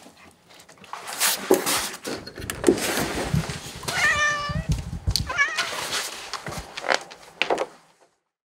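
A domestic cat meowing: one clear, slightly falling meow about four seconds in, then a shorter wavering one just after. Around the calls there is rustling and light knocking.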